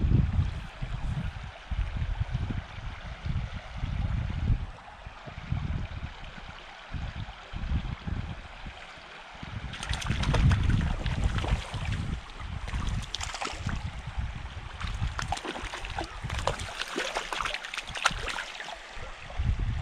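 Wind buffeting the microphone in gusts over a running stream. From about ten seconds in, a hooked trout splashes and thrashes at the surface in repeated bursts.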